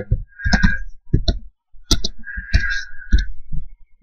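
Typing on a computer keyboard: a run of irregular key clicks that stops a little after three seconds in.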